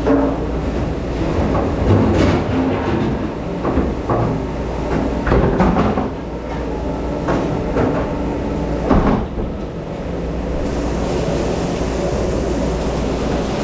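Dishes and racks clattering at a dish station over a steady machine rumble. The clatter stops about nine or ten seconds in, leaving only the steady rumble.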